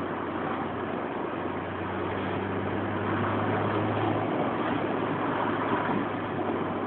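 Honda S2000's four-cylinder engine, fitted with a K&N air filter and a home-built exhaust, droning steadily as the car drives along, over a constant rush of road and tyre noise.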